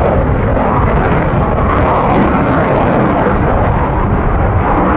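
RAF Eurofighter Typhoon's twin EJ200 turbofan engines with reheat (afterburner) lit through a tight display turn, making loud, steady jet noise.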